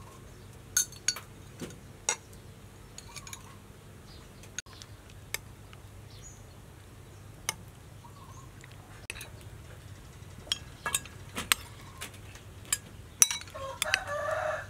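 Metal spoons clinking and scraping against ceramic soup bowls and a plate as pork soup with stuffed wax gourd is served out. The taps are scattered, coming more often and louder in the second half.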